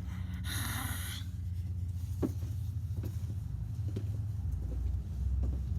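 Steady low hum, with a short hiss about half a second in and a few faint clicks.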